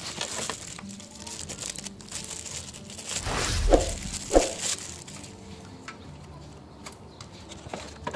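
Clear plastic bag crinkling as a cordless drill is pulled out of it. The crinkling is loudest from about three to five seconds in, with two sharp crackles. Light clicks of handling run through the rest.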